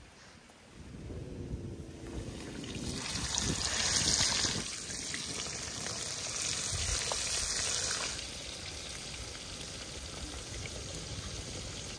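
Hot oil sizzling in a pan over a wood fire as floured fish pieces are laid in to fry. The hiss swells about three seconds in, is loudest for several seconds, then settles into a steadier, softer sizzle.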